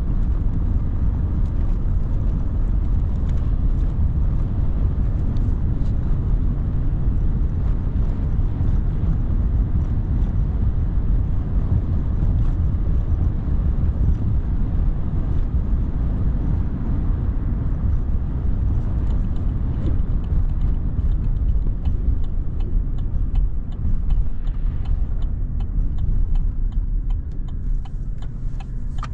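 Pickup truck driving, a steady low rumble of engine and road noise that eases off somewhat near the end, with a few light clicks.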